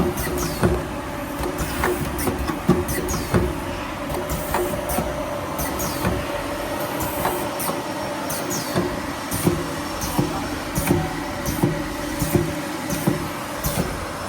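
Semi-automatic perfume filling and crimping machine running: a steady hum with irregular mechanical clicks and knocks from its working stations.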